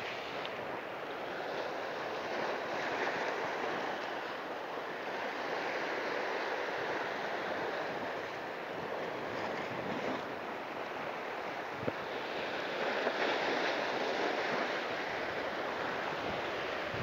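Ocean surf washing over a rocky reef, a steady rushing that swells and eases as the waves come in.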